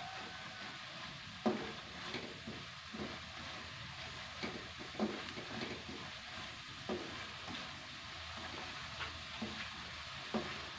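Ground spice paste sizzling as it fries in oil in a non-stick wok, with a spatula scraping and knocking against the pan every second or so as the paste is stirred.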